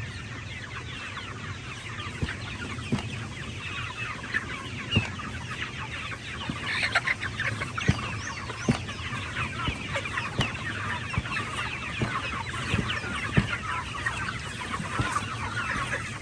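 A flock of chickens clucking and chattering continuously, with scattered sharp knocks and taps throughout.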